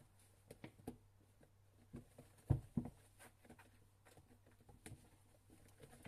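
Young kittens moving about: scattered soft taps and scuffs, with two louder thumps about halfway through, over a faint steady low hum.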